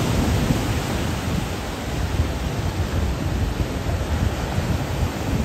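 Ocean surf breaking over black rocks on a rocky shore: a steady wash of noise with a heavy, uneven low rumble.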